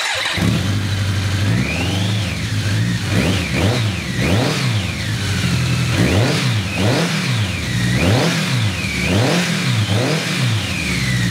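The BMW inline-four engine of a Peraves Monotracer MTi-1200 is revved repeatedly through a Hattech stainless-steel aftermarket exhaust. The revs climb and drop about eight to ten times in quick succession.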